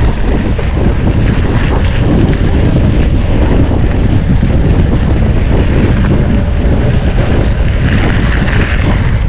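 Heavy wind buffeting on the microphone as a mountain bike descends a gravel track at speed, with the tyres rumbling over the gravel.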